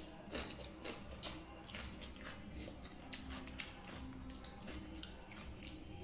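Close-up eating sounds: wet smacks of chewing and a hand squishing and scooping water-soaked rice (pakhala) in a steel plate, a string of short wet clicks and squelches.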